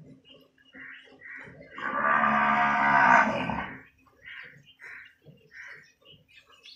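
A cow mooing once, a long call of about two seconds that starts about two seconds in. Before and after it comes a soft, even rhythm of short spurts, about two a second: milk squirting into a steel pail as the cow is hand-milked.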